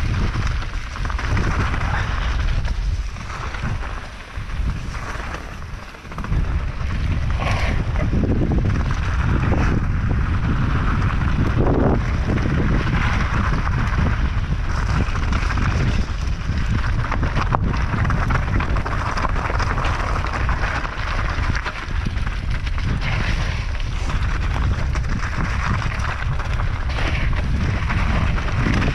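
Wind buffeting the microphone of a helmet or chest camera while a mountain bike rolls down a loose-rock trail, with tyres on gravel and a few sharp knocks. The wind noise eases briefly about five seconds in.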